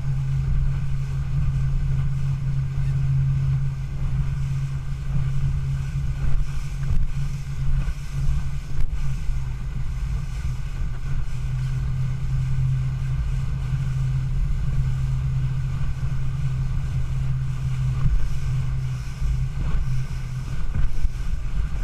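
Motorboat engine running at a steady pitch, with wind rumbling on the microphone.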